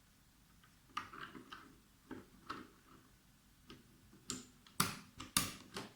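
Plastic clicks of a spacebar keycap being fitted onto a mechanical keyboard's switch and stabilizers: scattered light clicks, then two sharp, louder snaps near the end as it seats.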